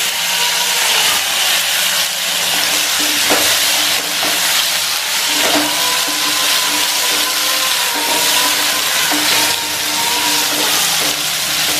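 Potato chunks, tomato and sliced onion sizzling in hot oil in a non-stick kadai, stirred with a wooden spatula that knocks against the pan a few times.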